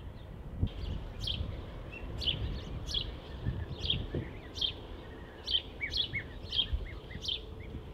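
A bird chirping over and over, one short sharp chirp roughly every three-quarters of a second, with fainter, lower chirps in between.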